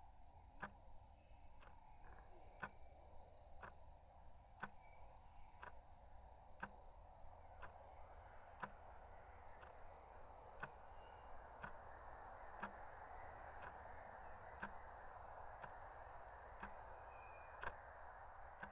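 Faint wall clock ticking steadily, about once a second, over a quiet night ambience with a thin, steady high tone.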